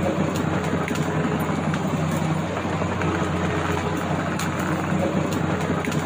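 JCB 3DX backhoe loader's diesel engine running steadily, a constant low hum.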